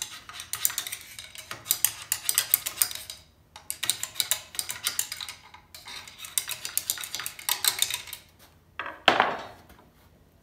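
A metal rod scraping and clinking rapidly against the inside of a COOT ATV's axle gear housing, stirring a diesel flush to break up thick old gear-oil sludge, in three runs a few seconds each. About nine seconds in comes one louder clunk.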